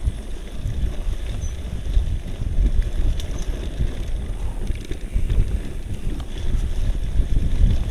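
Wind buffeting the microphone during a mountain-bike ride over a rough trail, a loud uneven rumble with a few sharp knocks and rattles from the bike.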